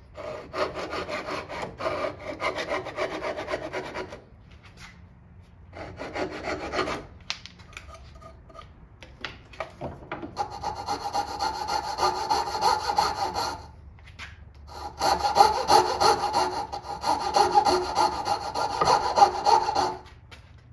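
Hand saw cutting hardwood with quick back-and-forth strokes, likely cutting dovetails. It comes in four spells separated by pauses: one at the start, a short one, then two longer ones in the second half.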